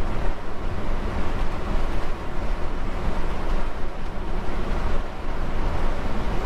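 Holden HK driving along, its engine, tyres and wind heard as a steady low noise from inside the cabin; the engine is running nice and quiet.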